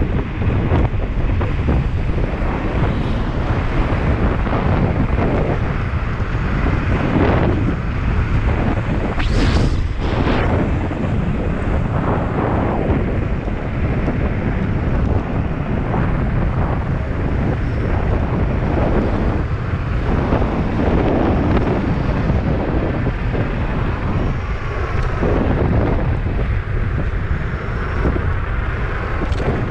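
Wind buffeting the microphone of a camera on an electric scooter riding at speed, a steady rough rush heaviest in the lows. About nine seconds in there is a brief harsher hiss.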